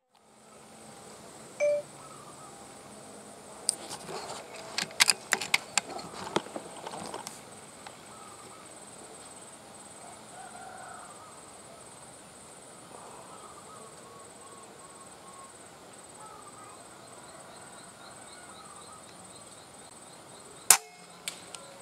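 Rural outdoor ambience under a steady high insect hum. A quick run of sharp clicks comes about four to seven seconds in, and a single loud sharp snap comes near the end.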